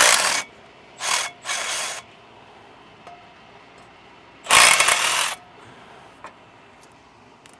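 Ratchet wrench clicking in four short bursts as bolts are worked loose, the last burst the longest.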